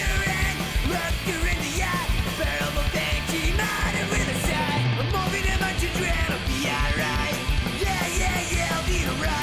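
Punk rock song played by a full band: drums, electric guitars and bass guitar, with shouted vocals over a steady beat.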